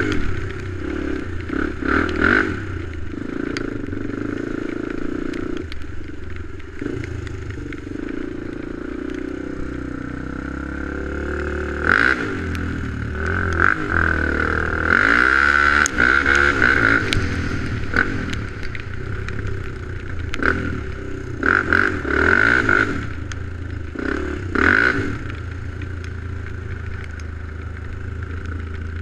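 ATV engine running while riding a rough trail, its revs rising and falling, most clearly around the middle, with repeated bursts of rattling and clatter over the bumps.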